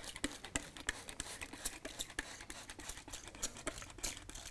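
Faint, irregular small clicks and taps, several a second, as glue is worked onto loose ballast on model railway track.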